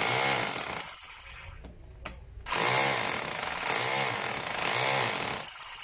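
A HANBO 920W rotary hammer in chisel-only mode, its flat chisel bit hammering into a concrete slab. It runs for about a second, eases off for about a second and a half, then runs again and stops just before the end. The hammer action sounds very strong.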